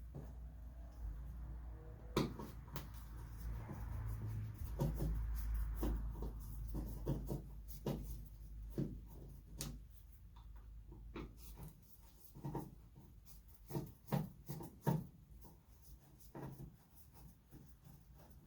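Scattered light clicks and taps with some rubbing as small headlamp parts and screws are handled, over a low steady hum that drops away about two-thirds of the way through.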